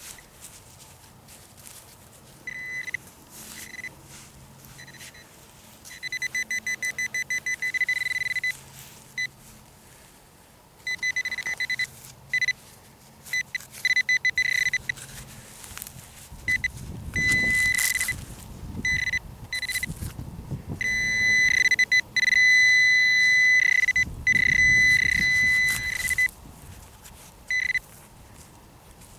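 Handheld metal-detecting pinpointer sounding on a buried target: a high single-pitched beep that comes and goes, quickens into a fast string of pulses, and later holds as long solid tones as it closes on the target. Dirt is dug and scraped around the middle and again about two thirds in.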